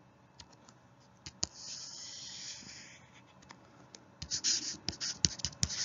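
Digital stylus scratching and tapping on a tablet surface. There is one smooth scratchy stroke about a second and a half in, then a quick run of taps and short scratches from about four seconds in.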